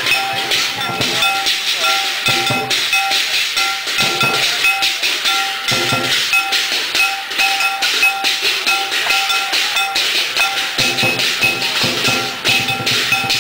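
Chinese festival percussion accompanying the performance: a high ringing metal percussion instrument struck at a steady beat, about two to three strokes a second, over cymbal crashes and intermittent drum hits.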